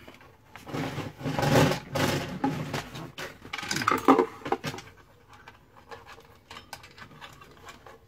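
Hands handling a plastic car centre console and its wiring: rustling, scraping and knocking during the first half, then only faint light taps and clicks.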